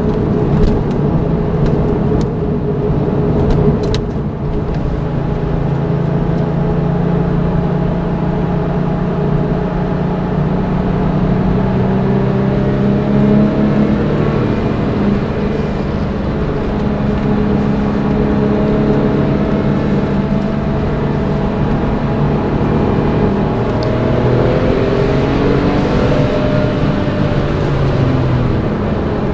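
A 2002 Porsche 911 Turbo's twin-turbo flat-six engine pulling hard on a track lap, heard from inside the car with road noise; the engine note holds steady for a long stretch, then climbs over the last few seconds. A few sharp ticks are heard in the first few seconds.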